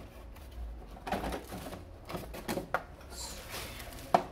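Cardboard packaging being handled: a cardboard tray lifted out of a box with scattered knocks and scrapes, then a plastic bag rustling about three seconds in and one sharp knock just before the end.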